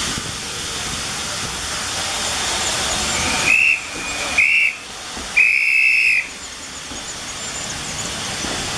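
Steam locomotive whistle giving three high blasts, two short and then one longer, over a steady hiss of steam as the train runs past.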